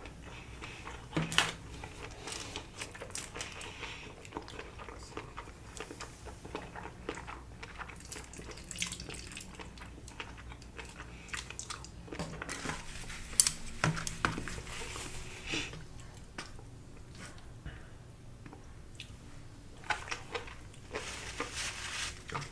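A person chewing sushi close to the microphone, with soft mouth sounds and a few sharp clicks scattered through.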